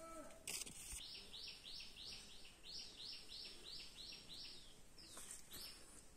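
A bird singing faintly: a run of about eleven quick repeated high notes, each dropping in pitch, about three a second for some three and a half seconds, followed by a couple of short calls.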